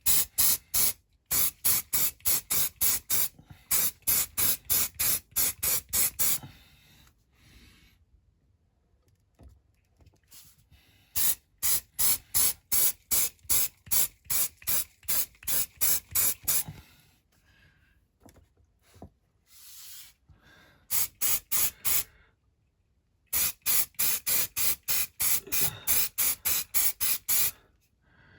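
Aerosol spray can fired in rapid short hissing spurts, about three or four a second, in four runs with pauses between: a thin first coat of primer going on.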